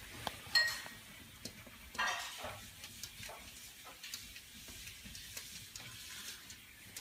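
A kitten's paws and claws tapping and scraping against a mirrored sliding closet door, in light irregular clicks and taps. There is a short squeak about half a second in and another at about two seconds.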